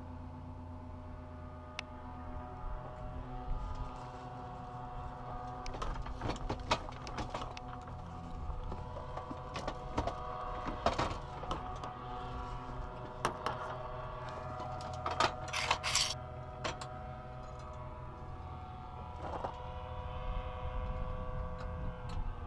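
Clicks, knocks and rattles as a paramotor's metal frame, prop cage and harness buckles are handled, over a steady pitched hum.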